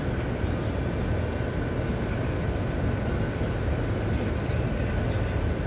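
A steady low mechanical rumble with a faint, thin whine held at one pitch. It runs without a break.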